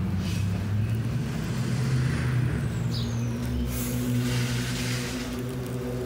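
A steady low mechanical hum of a running motor or engine nearby.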